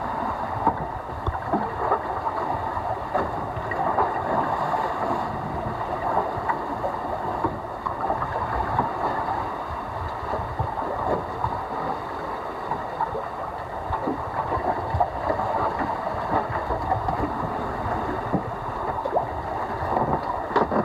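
Water rushing and gurgling along the hulls of a sailing trimaran moving under sail, a steady wash.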